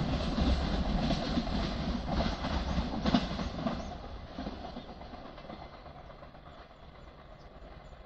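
Container freight train's wagons rumbling along the rails as the train moves away, with a few sharp clacks about two to four seconds in. The sound then fades steadily.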